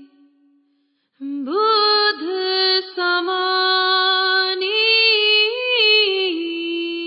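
Solo voice singing a devotional shabad with no instrument heard. A held note fades into a brief pause, and about a second in the voice begins a long drawn-out phrase on held vowels, its pitch stepping up and down.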